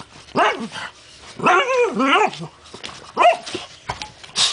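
Pug barking at a hat it is afraid of: a short bark, then a longer wavering bark-growl, then another short bark, with a short noisy burst near the end.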